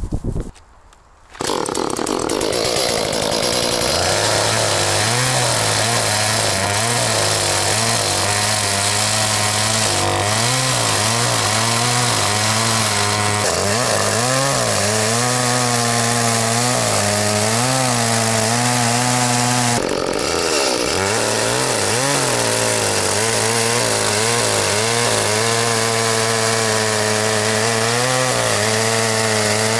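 Gasoline chainsaw running at high revs, coming in suddenly about a second and a half in. Its engine note wavers up and down as the chain bites into a log, with a brief drop in revs about two-thirds of the way through.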